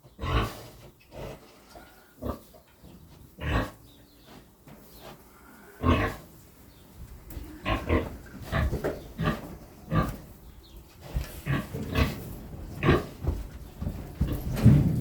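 Domestic pigs grunting: a few scattered short grunts, then grunts coming more often from about halfway through.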